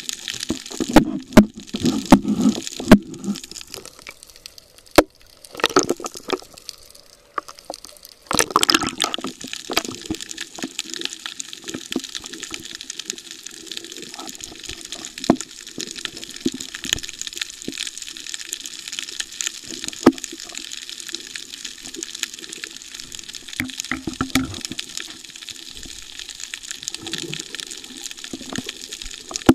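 Water sloshing and gushing close to the microphone, with a few sharp knocks in the first several seconds and steadier rushing after that.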